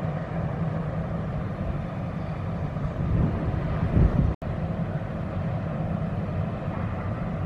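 Low, steady drone of a RoRo cargo ship's engines carried across the water as it passes, with a hiss of wind and water over it. About four seconds in there is a louder rumble, then the sound cuts out for a moment.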